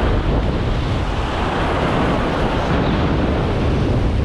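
Wind buffeting the microphone over surf breaking and washing across jetty rocks, a steady loud rushing noise.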